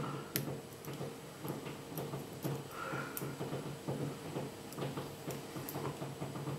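Faint, irregular small metal clicks of a short hook pick and tension wrench working the pin stack inside a Yale YE1 padlock during single-pin picking, over a low steady hum.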